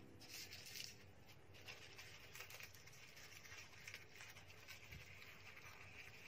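Near silence, with faint light scratching and small ticks as strawberry seeds are scraped off the fruit's skin onto tissue.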